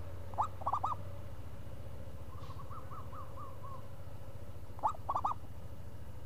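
Zebra dove (perkutut) cooing: two crisp phrases of about four quick rising-and-falling notes, about four seconds apart, with a fainter run of coos between them. A low steady hum runs underneath.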